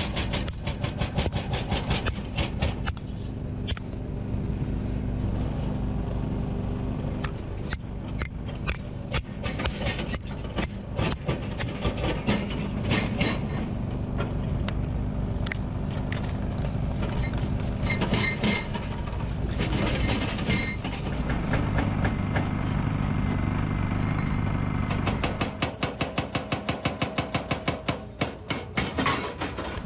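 Excavator engine running steadily, with rapid repeated knocking over it. Near the end the knocks become a fast, even pounding.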